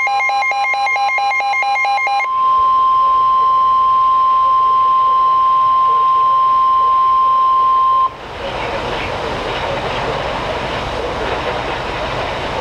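Emergency Alert System signal: about two seconds of rapidly repeating electronic beeps, then a single steady tone of about 1 kHz, the weather-radio attention tone, held for about six seconds and cutting off suddenly. A steady noisy hiss follows.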